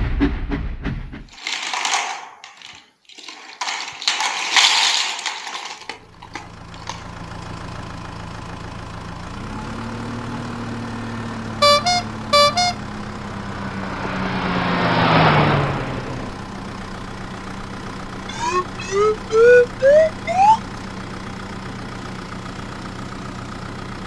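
Cartoon toy-vehicle sound effects: bursts of hiss, then a steady engine hum. A few short horn beeps come about halfway through, followed by a swelling whoosh with a falling tone. Near the end there is a quick run of short rising springy glides.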